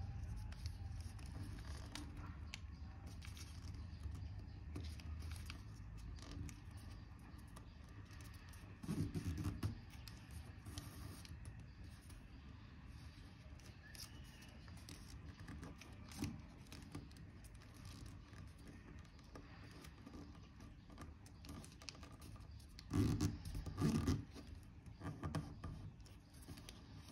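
A sheet of origami paper being folded and creased by hand: faint scraping and rustling with small clicks, and louder handling noise about nine seconds in and again near the end.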